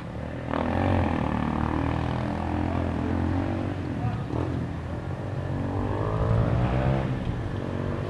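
A motor vehicle engine running close by, with a steady low hum whose pitch drifts up and down slightly, as from light revving, near the end.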